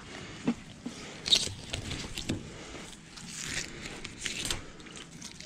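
Filleting knife cutting through a scaled seabream on a metal cleaning table: an irregular run of scratchy rasps and small crunches, with one sharp click just over a second in.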